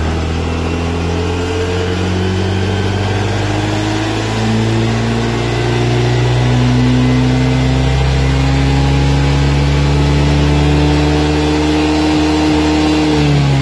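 Honda Activa 125 BS6 scooter's single-cylinder fuel-injected engine at full throttle on its stand, rear wheel spinning free up to about 100 km/h. The engine note rises quickly, then climbs slowly and steadily, and drops away near the end.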